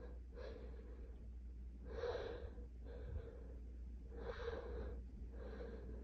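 A person with a head cold taking five gasping breaths through the nose and mouth, unevenly spaced about a second apart.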